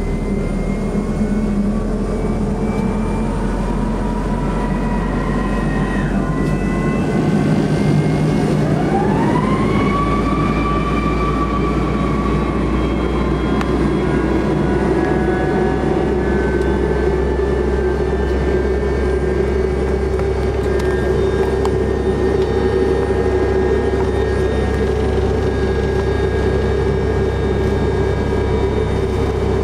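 Tupolev Tu-154B-2's Kuznetsov NK-8-2U turbofan engine heard from inside the cabin, spooling up during engine start: a whine rises steeply about eight seconds in and then holds steady over a constant jet drone.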